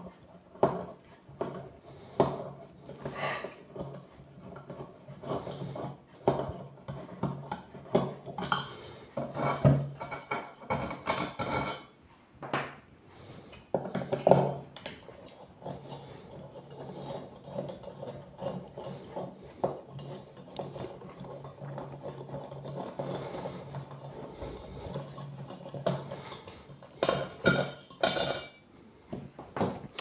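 Screwdriver working screws out of an aluminium heatsink set in a polystyrene foam lid: irregular clicks, scrapes and rubbing as the screws are turned and handled.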